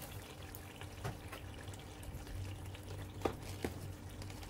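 Tomato meat sauce simmering in a pot, a faint steady bubbling with small pops. Two light clicks a little past three seconds in.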